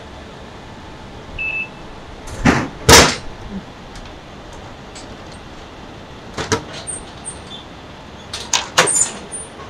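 Drink vending machine dispensing a bottle: a short beep as the selection button is pressed, then the bottle drops into the delivery bin with two loud thuds. Later come sharp plastic clacks as the bin's flap is pushed open and the bottle is pulled out.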